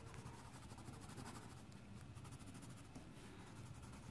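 Faint scratching of a colored pencil on paper as a line is drawn.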